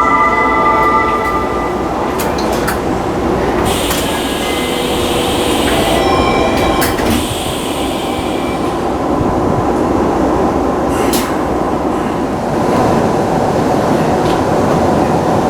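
The last ringing tones of a Tokyu Meguro Line train's door chime fade out in the first second. Then comes the train car's steady running rumble, with a few short knocks.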